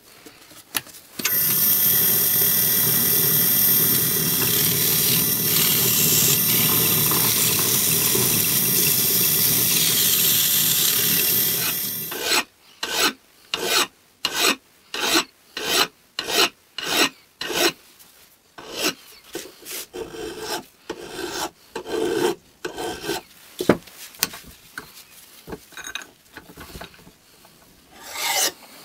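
A spinning power tool with a steady high whine runs for about ten seconds, then stops suddenly. It is followed by a hand file working a metal part of a Stanley 110 block plane clamped in a vise: even push strokes, about three every two seconds, with a pause near the end.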